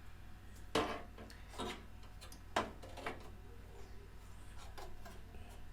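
Sharp clicks and knocks of hardware being handled as a USB 3.0 PCIe expansion card is fitted into a desktop PC case. There are four louder knocks in the first three seconds, then a few fainter ticks.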